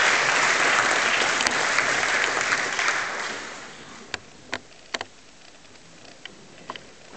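Audience applause, loud for about three seconds, then dying away to a few single claps.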